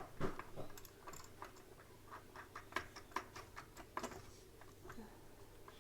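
Irregular light clicks and taps as the parts of an LED ring light's pan-tilt phone holder are handled and fitted into the mount.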